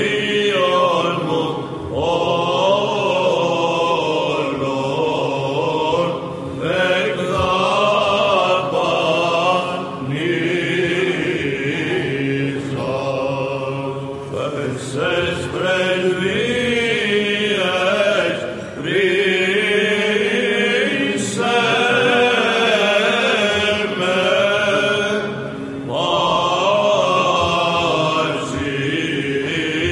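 Byzantine chant (psaltiki): voices singing a winding melody in phrases over a steady held drone note (the ison), with short breaks between phrases.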